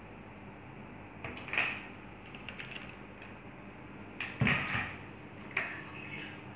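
Plastic kitchenware being handled and set down on a tabletop: a few short knocks and clatters, the loudest about four and a half seconds in.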